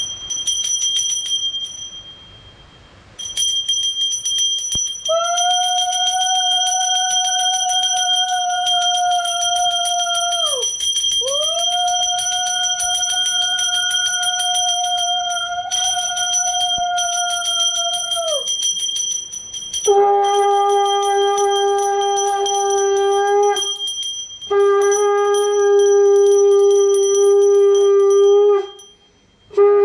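Brass puja hand bell rung continuously, with a conch shell (shankha) blown in long, steady blasts over it. First come two higher blasts, each bending up at the start and dropping off at the end, then three lower, louder blasts.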